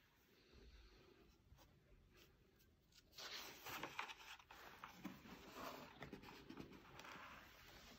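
Faint paper rustling of a hardcover photo book being opened and its pages turned by hand, the sheets swishing and sliding, louder from about three seconds in.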